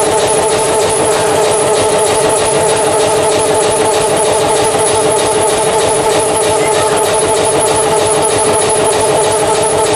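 The Train Jaune's metre-gauge electric train, running with a loud, steady hum of several unchanging tones over a fine, fast rattle.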